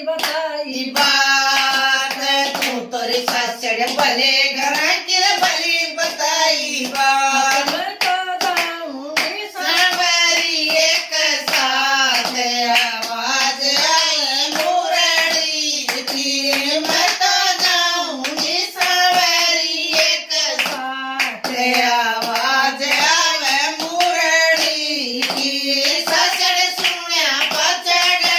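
Women's voices singing a Haryanvi devotional bhajan, with hand clapping keeping the beat.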